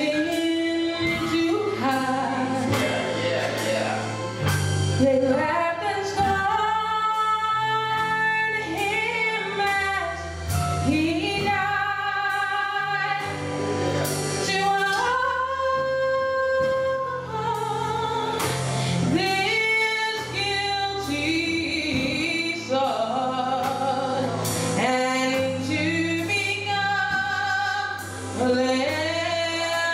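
Gospel choir song with a woman singing lead, her held notes sliding between pitches, over a bass line and drum hits.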